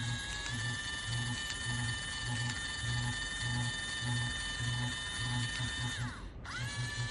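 Gawk Gawk 3000 electric masturbator cup running: a steady high motor whine with a regular low pulsing throb about twice a second from its vibration mode. About six seconds in, the whine winds down and cuts out, then starts straight back up, and the pulses get quicker near the end.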